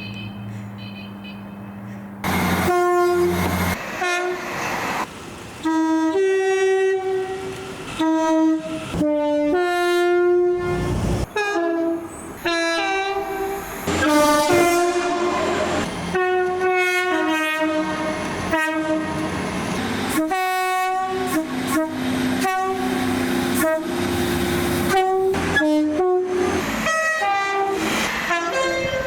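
Multi-chime train air horn sounding a chord in a long run of rapid short and longer blasts, starting about two seconds in.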